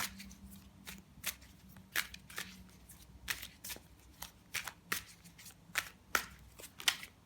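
A tarot deck being shuffled by hand: a string of irregular, sharp card snaps and flicks, roughly two a second.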